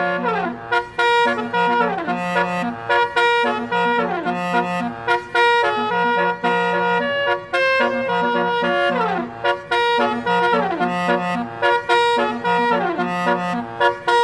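A basuri musical bus horn playing a song melody in held notes over a pulsing low line, with falling slides that repeat every few seconds.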